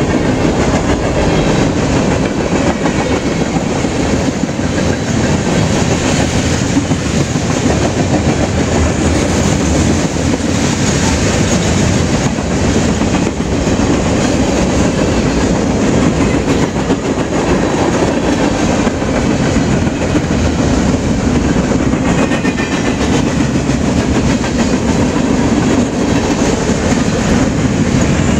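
Freight train cars rolling steadily past on the rails: a loud, continuous noise of steel wheels on track.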